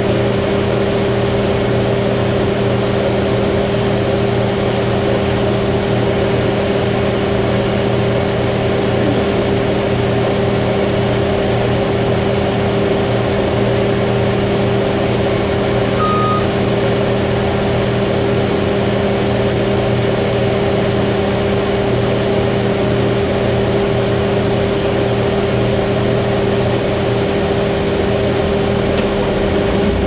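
Cummins ISC inline-six diesel of a Blue Bird CS transit bus running at a steady speed, heard from inside the passenger cabin as an even drone. A short high beep sounds once about sixteen seconds in.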